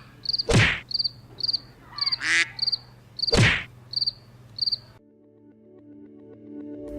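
Cricket-chirp sound effect: short, evenly spaced high chirps about three a second, the comic cue for an awkward silence with no answer. Two whooshes sweep through it, and the chirps stop near the end as a soft held music tone fades in.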